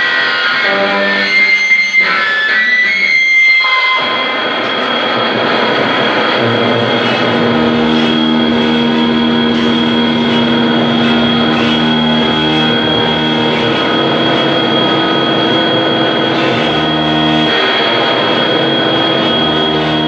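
Live improvised noise music. Distinct picked electric guitar notes give way about four seconds in to a dense, noisy drone, with steady low held tones underneath and a thin high tone on top.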